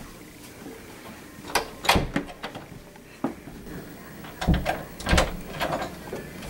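Interior doors being handled: sharp latch clicks and knocks about two seconds in, then heavier door thuds around four and a half and five seconds.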